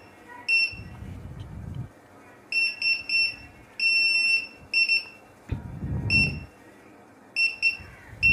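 Metscan hand-held metal detector's buzzer beeping in short, irregular beeps, with one longer beep about four seconds in: the alarm signalling that it senses metal.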